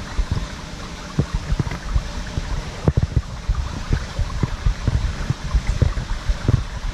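Water in an apple dump flume sloshing around a GoPro at the surface, with irregular muffled knocks as floating apples bump against the camera and each other; the sharpest knock comes about three seconds in.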